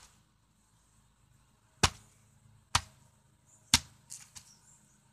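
The blunt back of a hatchet striking a head of cabbage on a concrete tabletop: three sharp whacks about a second apart, followed by a few lighter knocks.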